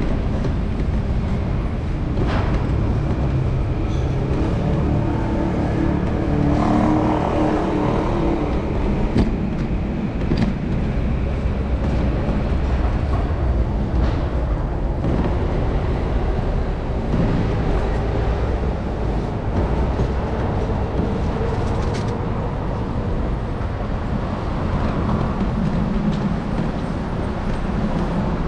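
Street traffic heard from a moving bicycle: a steady low rumble of cars and wind on the microphone, with a few short clicks along the way.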